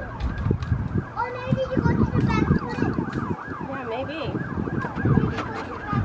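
Background pop music with a wavering, warbling high line over a steady beat and drums.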